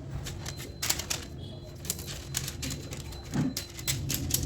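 Kitchen knife tapping and chopping through dark chocolate on a cutting board: a run of irregular sharp taps, over a steady low hum.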